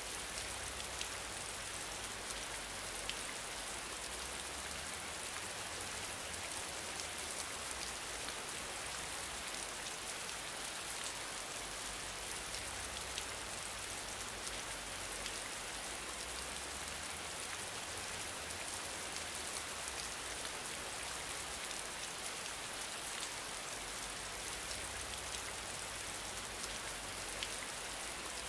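Steady, rain-like hiss with faint scattered ticks, even in level throughout.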